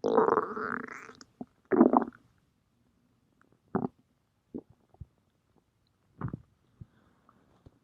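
Stomach growling: a drawn-out gurgle for about the first second, another about two seconds in, then short scattered gurgles and squelches.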